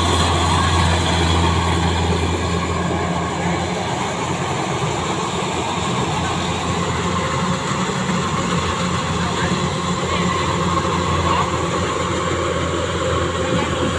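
Kubota rice combine harvester running at work: a steady low drone from its diesel engine with the rattle of its cutting and threshing gear.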